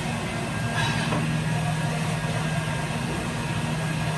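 Steady drone of a commercial kitchen extraction hood fan running, with a light clink about a second in.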